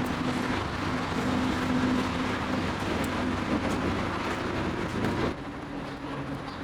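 Steady mechanical rumble with a low hum, dropping suddenly to a quieter background about five seconds in.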